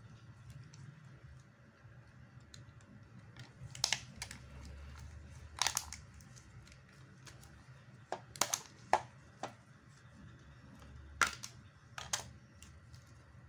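Plastic housing parts of a Nokia 3110c mobile phone clicking and snapping as they are handled and pressed together, about eight sharp clicks scattered over a steady low hum.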